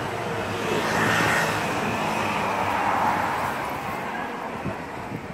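City street traffic: a passing motor vehicle whose rushing noise swells about a second in and fades away over the following few seconds.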